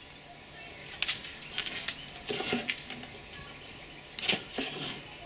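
Handling noise from lanyard-making by hand: a scatter of sharp clicks and short rustling scrapes as the nylon cord, crimps and tools are worked, with a cluster about a second in and another about four seconds in.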